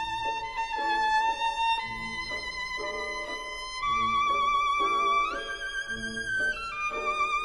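Background music: a violin playing a slow melody with vibrato over a steady rhythmic accompaniment.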